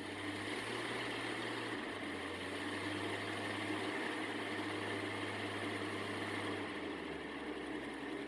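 The 1954 Ford 223 inline-six engine of an early Asplundh mobile wood chipper running steadily just after a cold start, choke off, with the chipper drum not yet engaged.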